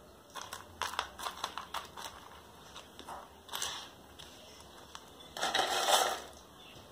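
Chunky orchid potting medium crunching and rattling in a thin plastic cup as it is pressed in around a seedling. A run of small clicks comes in the first two seconds, then a short crunching rustle about three and a half seconds in and a longer, louder one at about five and a half seconds.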